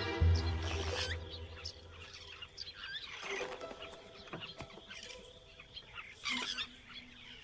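Background music fades out in the first couple of seconds, leaving natural bush ambience with scattered bird chirps and calls.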